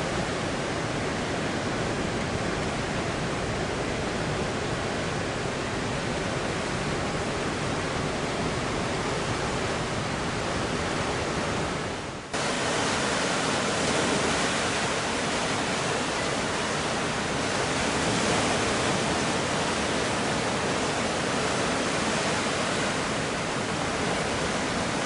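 Steady rushing noise of ocean surf breaking at a reef, with no distinct individual sounds; it drops out for an instant about halfway through, then carries on.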